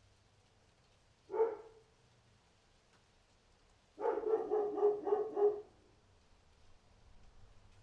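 Dog barking: a single bark about a second in, then a quick run of about six barks a couple of seconds later.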